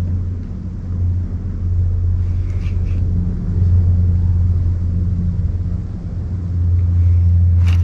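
A steady low rumble that swells and dips, with faint ticks about three seconds in and a brief scraping sound at the very end.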